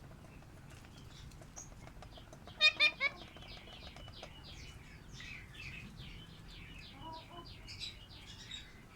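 Pet lovebirds calling: three loud, shrill calls in quick succession about two and a half seconds in, then a run of rapid chirping and chattering.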